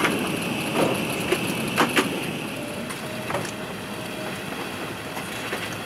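Steady hiss of an Airbus A380 passenger cabin while the aircraft taxis in to the gate after landing, with a run of sharp clicks and knocks from inside the cabin in the first few seconds.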